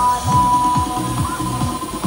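Electronic dance music with a steady thumping kick-drum beat and a long held synth note, playing at a fairground ride.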